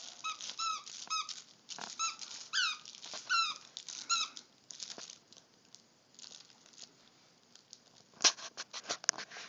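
A dog chewing a squeaky toy: a quick run of short squeaks, roughly two a second, over the first four seconds or so. Then softer chewing and mouthing clicks, with one sharp click near the end.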